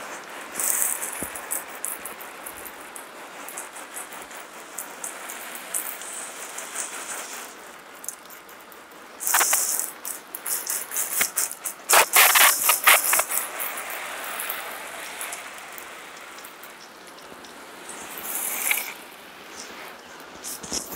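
Garden hose spray pattering on a wooden fence and plastic buckets as a steady hiss, with several louder bursts of spatter as the stream sweeps across.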